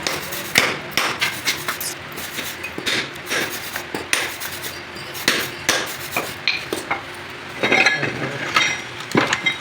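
Irregular sharp metallic knocks and taps of hand tools, a hammer striking metal, at an uneven pace with a cluster of quick strikes near the end, over a steady low hum.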